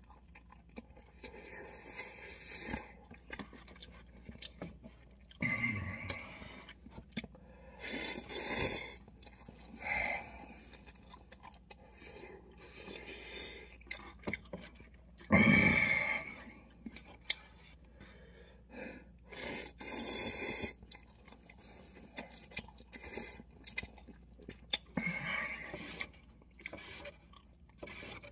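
A person eating instant cup noodles, slurping noodles in and chewing, in short bursts with quieter gaps. The loudest burst comes about halfway through.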